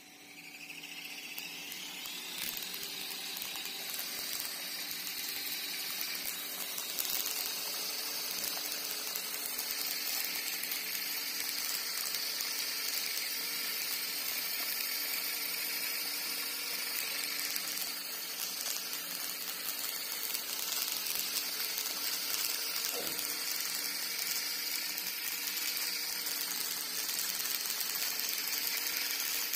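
Small electric motors of toy tractors whining steadily under load as their wheels spin and churn through muddy water in a tug-of-war. It builds up over the first few seconds, then holds steady.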